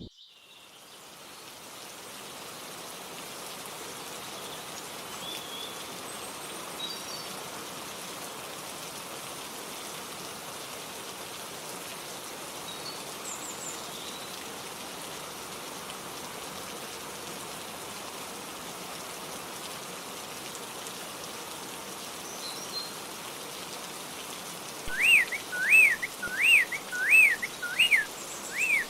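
Steady rain falling, fading in over the first couple of seconds, with faint scattered bird chirps. Near the end a bird starts a loud, repeated rising-and-falling whistle, about two or three notes a second.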